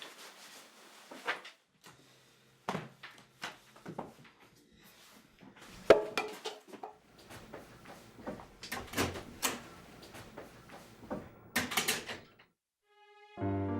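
A string of irregular knocks, clicks and bumps, like a door and drawers being handled in a small room. The sharpest knock comes about six seconds in. Soft music begins just before the end.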